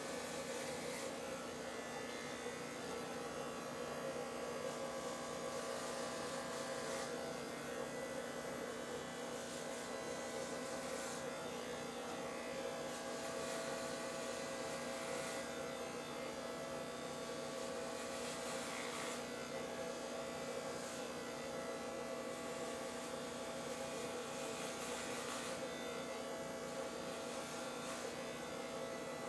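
Corded electric hair clippers buzzing steadily as they are run through short hair, with a brief rasp now and then as the blades bite into the hair.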